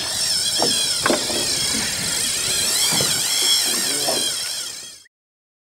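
Boat motor running steadily with a wavering whine and a few irregular knocks. It cuts off suddenly about five seconds in.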